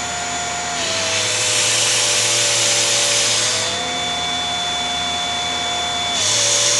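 Small vacuum cleaner running with a steady motor whine while its nozzle is mouthed and blocked, then opened. About a second in the air rush turns loud and the whine drops in pitch for about three seconds, then goes quieter with a higher whine when the nozzle is covered, and the loud rush returns near the end.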